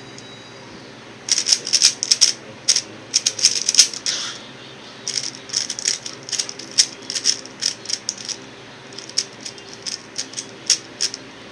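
X-Man Tornado V1 3x3 speed cube being turned fast, its layers clicking in quick runs that start about a second in, with a short pause a little before halfway.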